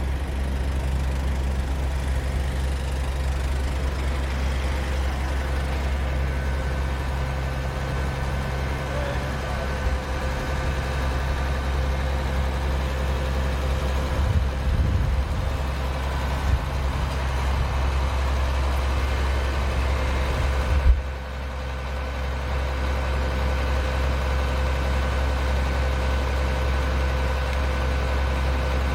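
Steady low rumble of emergency vehicles' engines idling (fire trucks and ambulances), dipping briefly about 21 seconds in.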